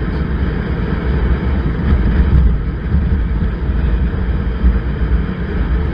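Motorcycle riding at speed on an open road: a steady low rumble of wind buffeting the microphone, mixed with engine and road noise.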